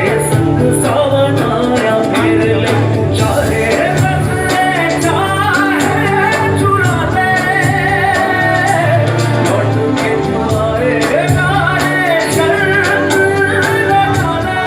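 A song: a singing voice over instrumental backing with a steady beat.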